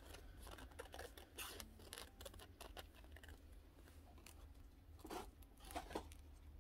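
Scissors snipping through clear waterslide decal paper: a run of faint, short cuts, with two louder snips near the end.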